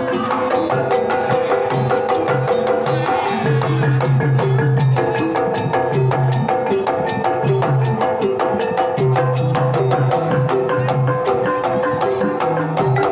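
Javanese gamelan playing a Banyumasan tayub piece: hand-struck kendang drum strokes over bronze pot gongs, small gongs and metallophones struck with mallets, many ringing pitches with a quick, dense beat.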